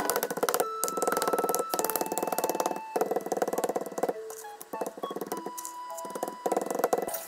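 Wooden rolling pin beating raw chicken tenderloins flat on a plastic cutting board: rapid runs of soft strikes in several bursts with short pauses between them, over background music.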